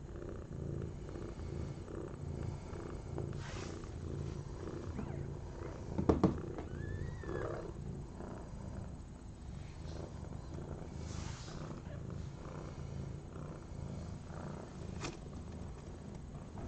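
Mother cat purring steadily just after giving birth, with a sharp knock about six seconds in.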